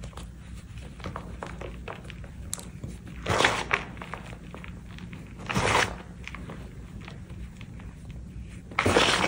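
Reformed gym chalk chunks being crushed and crumbled by hand into loose chalk powder: soft crackling and crumbling throughout, with three louder crunchy squeezes, about three seconds in, about five and a half seconds in, and near the end.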